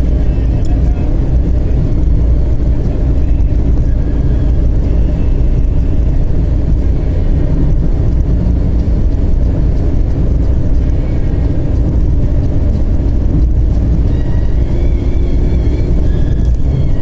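TDI turbodiesel car cruising at highway speed: a steady, loud low rumble of engine and road noise, with faint high wavering tones near the end.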